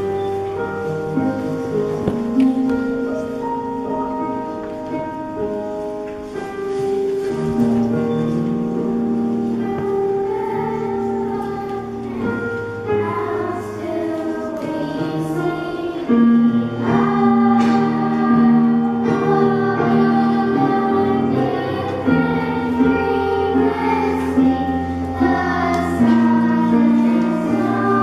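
Church choir singing a Christmas cantata, in long held notes.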